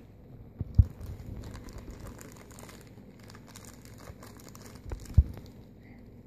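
Crinkly white paper wrapping being pulled open by hand around a small toy figure from a blind bag, a steady run of crackles. Two dull thumps stand out, about a second in and again about a second before the end.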